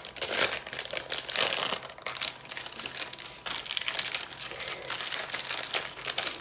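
Clear plastic packaging crinkling as it is handled: a diamond-painting canvas's plastic sleeve and small plastic bags of rhinestones being shuffled and packed together, in an irregular, continuous crackle.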